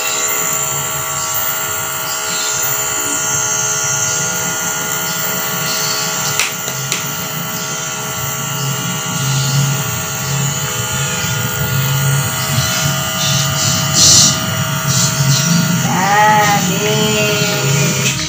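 Electric compressor nebulizer running with a steady hum while it mists medicine for a baby's cough and cold. Near the end the baby gives a short, wavering cry.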